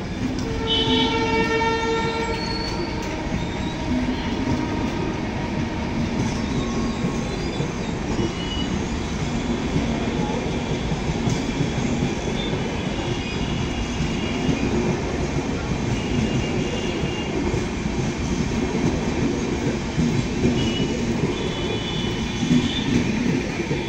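Mitali Express passenger coaches rolling past close by, with a steady rumble and the clatter of wheels over the rails. A train horn sounds about a second in for roughly two seconds. High thin wheel squeals come and go, strongest near the end.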